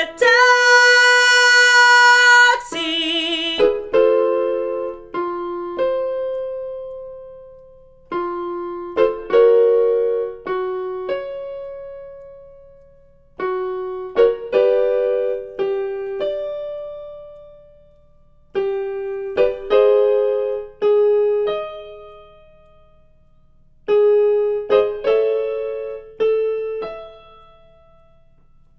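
A singer holds a belted note with vibrato for about two and a half seconds. Then a piano plays a short vocal-exercise pattern five times, each followed by a fading pause, each time a little higher: the accompaniment of a belting warm-up.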